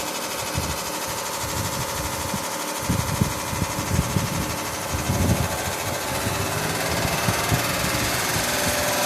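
Carrier Siesta 6100 BTU window air conditioner running with its fan blowing and an irregular knocking rattle, as if something is caught inside. The noise is the fan rubbing against its guard because the lower mount of the condenser has rusted off. The knocking gets heavier about three seconds in.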